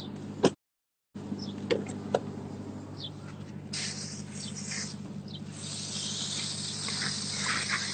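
Rustling hiss on a handheld phone's microphone as it is moved about, growing louder in the second half over a steady low hum, with a few clicks near the start. The sound cuts out completely for about half a second shortly after the start.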